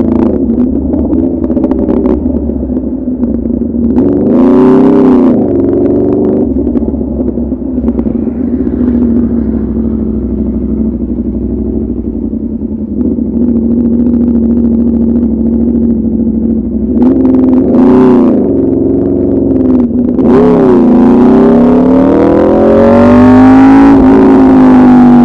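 2016 Aprilia RSV4 RF's V4 engine, loud through an SC Project CRT exhaust with the catalytic converter removed. The revs twice rise and fall quickly, hold steady in between, then dip and climb in a long pull near the end.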